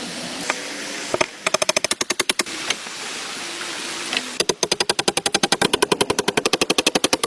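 Steady rain hiss, broken twice by runs of fast, even clicking at about ten clicks a second. The second run starts a little over four seconds in and is the loudest sound.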